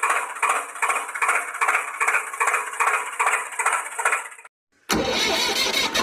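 Tractor engine sound effect: a thin, rhythmic chugging of about two to three beats a second, like an engine being cranked over. It cuts out briefly near the end, then a fuller, deeper engine running sound comes in.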